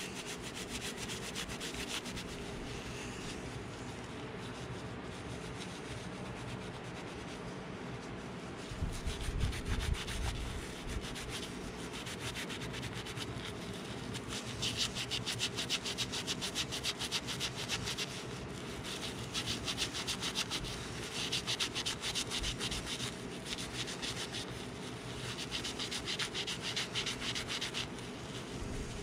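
Hand scrubbing with an abrasive, rubbing corrosion off the metal stud of a DeWalt wet tile saw trolley where a guide-wheel bearing seats. The strokes are fast and come in spells of a few seconds with short pauses, and a dull bump sounds about nine seconds in.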